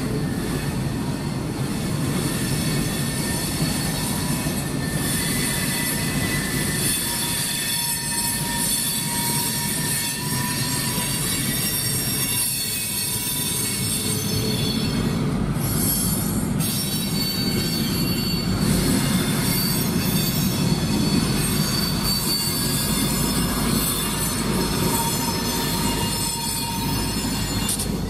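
Loaded freight cars rolling slowly past on steel rails, with a steady, high wheel squeal of several overlapping tones over the rumble of the wheels.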